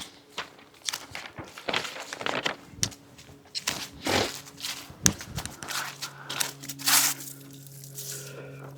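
Irregular rustling, crinkling and clicking of things being handled, with a faint steady hum underneath.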